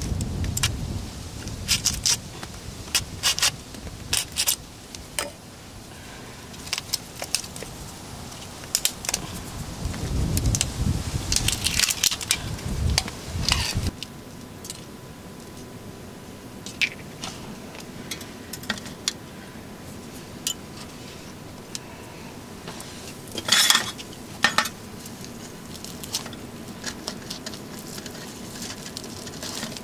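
Scattered sharp clicks, taps and clatters of food and utensils being handled. The sounds come first as a hot tin can is lifted off the rocks by the campfire, then as food is laid on a wooden board with chopsticks. A louder clatter comes about two-thirds of the way through.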